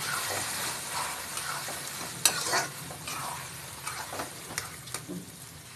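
A spatula stirring a mash of roasted eggplant, tomato and green chilies in a hot kadhai with oil, over a steady sizzle. The spatula scrapes and taps against the pan, with a sharp knock about two seconds in.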